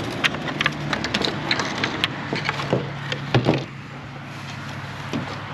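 Rapid small clicks and rustling of a rear-view camera's wire and plastic liftgate trim being handled as the wire is fed through a hole, stopping about three and a half seconds in.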